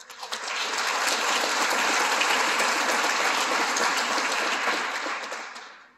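Theatre audience applauding: the clapping swells within about half a second, holds steady, then dies away near the end.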